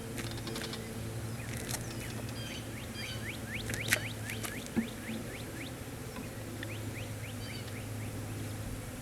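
Honey bees humming steadily around an open hive, with a bird calling in a string of quick falling chirps and two sharp clicks near the middle.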